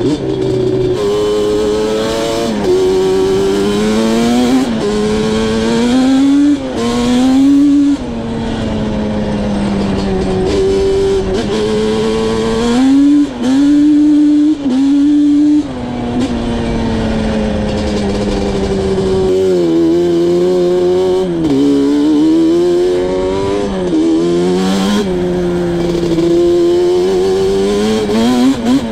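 Yamaha Banshee 350's twin-cylinder two-stroke engine being ridden, its revs climbing and dropping back over and over with throttle and gear changes.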